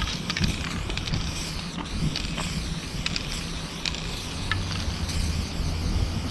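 Aerosol spray-paint can hissing steadily as a wide fill is sprayed onto a truck's metal side, with scattered light clicks over a steady low rumble.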